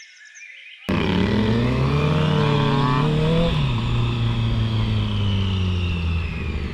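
Faint birdsong, then about a second in a Honda CBR650F's inline-four engine cuts in loud, heard from the bike's onboard camera. Its pitch rises for a couple of seconds as it accelerates, drops sharply about halfway through, then holds and slowly falls.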